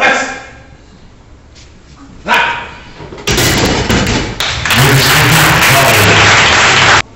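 People shouting at the top of their voices to urge on a lifter during a heavy bench press: a loud shout at the start and another about two seconds in, then several seconds of continuous yelling and cheering that cuts off suddenly just before the end.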